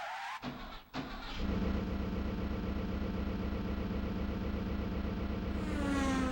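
Synthesized car-engine sound effect from a Roland SC-88 tone generator (Kumyoung Chorus 88 karaoke machine): a short sputtering start in the first second, then an engine running steadily from about a second and a half in, with a falling pitch sweep near the end.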